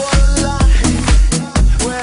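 Electronic dance music playing, with a steady kick drum beating about twice a second under a synth melody.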